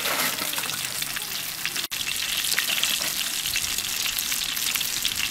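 Battered onion rings deep-frying in hot oil: a steady, dense sizzle full of fine crackling pops, which drops out for an instant about two seconds in.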